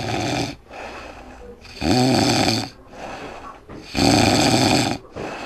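A man snoring loudly: three rough, rasping snores about two seconds apart, with quieter breaths between them.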